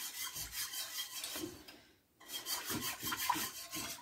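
A spatula scraping and stirring around the bottom of an enamelled cast-iron Dutch oven through thin gravy as it thickens, in repeated strokes with a short pause about two seconds in.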